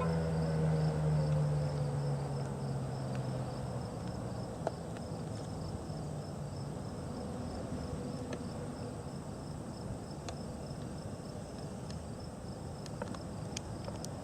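Federal Signal 2001-SRN electromechanical warning siren winding down at the end of its test, its wail falling in pitch and fading away over the first several seconds. Insects chirp steadily in the background, with a faint click or two.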